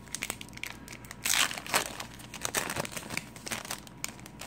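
A baseball card pack's foil wrapper being torn open and crinkled in the hands, a dense run of irregular crackles, loudest about a second and a half in. The cards are then slid out of the wrapper.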